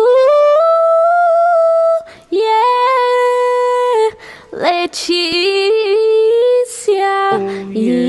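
High-pitched wordless singing: long held notes that jump from pitch to pitch, broken by short gaps, with a lower tone joining near the end.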